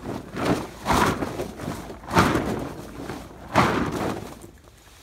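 Tent fabric rustling and flapping as it is lifted and shaken out, in about four loud swishes, the last two the strongest.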